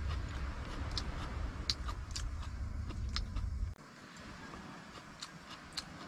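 Chewing and light clicks of metal chopsticks against a stainless-steel bowl while eating, over a low rumble that cuts off about two-thirds of the way in.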